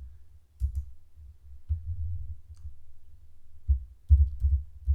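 Computer keyboard being used: scattered key clicks with low, irregular thuds.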